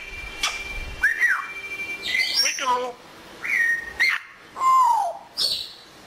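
Congo African grey parrot whistling and clicking: a string of short calls about a second apart, among them an arched whistle, a level whistle and a falling whistle, with a few sharp clicks between them.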